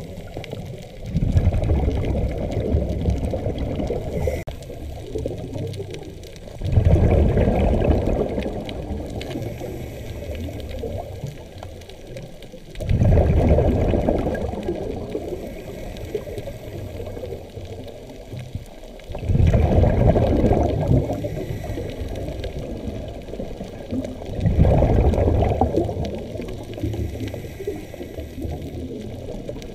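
Scuba diver breathing through a regulator, heard underwater: five rushes of exhaled bubbles about every six seconds, each fading away before the next.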